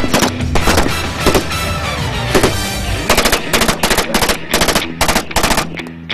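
Rapid rifle fire in bursts over background music, with a quick run of about five shots a second from about three seconds in.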